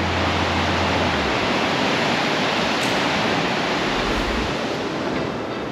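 Sea surging into the limestone chasms and blowholes of the Pancake Rocks: a steady, loud rush of churning surf that eases slightly near the end.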